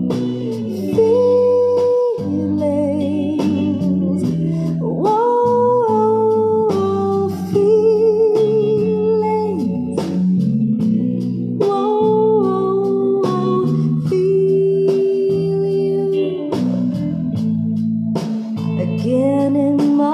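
Instrumental break of a love-song ballad played back through Creative S-700 mini bookshelf speakers. A lead melody holds notes with vibrato and slides between them, over chords and a steady beat.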